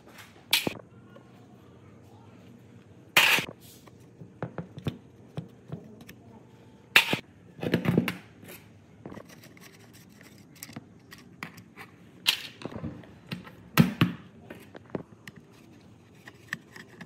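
Irregular sharp knocks and clinks of hand tools and metal parts being handled while working on a demolition hammer, with several louder strikes between quieter clicks.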